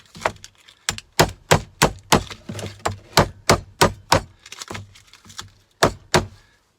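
Repeated hammer blows knocking copper windings out of a scrap electrical part, in quick runs of about three strikes a second with two short pauses.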